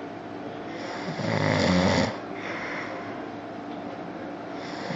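Snoring: a loud, low snore about a second in that lasts about a second, softer breathing after it, and the next snore starting near the end.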